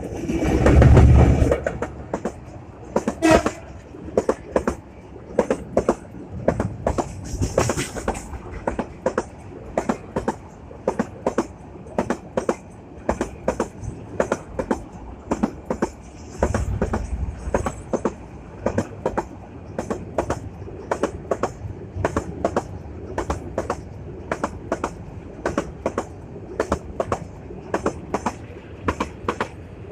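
Train passing close by on the track: a loud rush as it arrives, a short horn sound about three seconds in, then a long steady run of wheel clicks as the coaches cross the rail joints.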